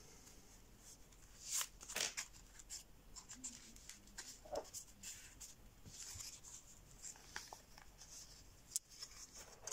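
A sheet of 80 g/m² printer paper folded and creased by hand into pleats: faint rustling and crinkling with scattered short crackles, the sharpest two about a second and a half and two seconds in.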